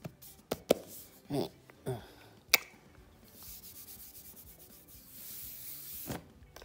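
Hand handling a laptop in a hard plastic shell case on a bed: several sharp taps and knocks in the first two and a half seconds, then a steady rubbing as the hand slides over the case and sheets for about three seconds.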